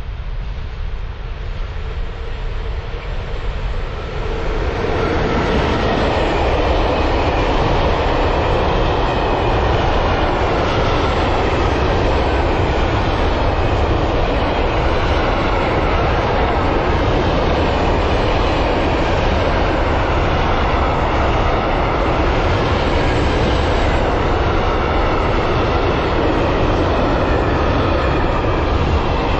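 Container freight train hauled by a Škoda class 182 electric locomotive, approaching and then rolling past at close range. The rumble of the train swells sharply about four to five seconds in as it reaches the spot, then holds as a loud, steady noise of loaded container wagons on the rails.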